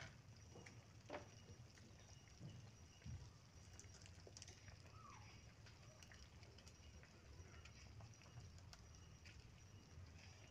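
Near silence: a faint steady low hum with a few soft ticks and one brief faint chirp about halfway through.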